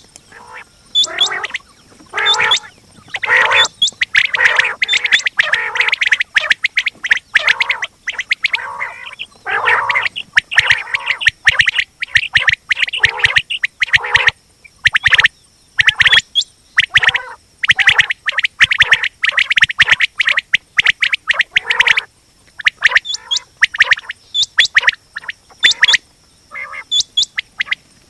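Quails calling: a dense run of short, harsh, rapid calls and chatter, several a second, broken by brief pauses.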